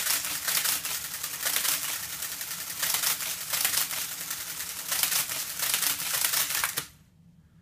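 Monroe CSA10 electro-mechanical calculator running an automatic division: a fast, dense mechanical clatter over a steady motor hum, swelling in a regular rhythm about every three-quarters of a second. It stops abruptly near the end as the division finishes.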